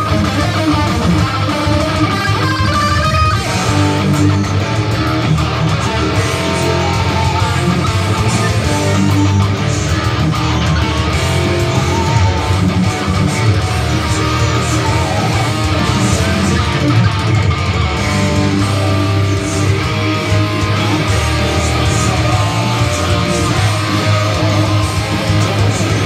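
Electric guitar played through a Kemper Profiler amp modeller, one loud unbroken passage with no pauses.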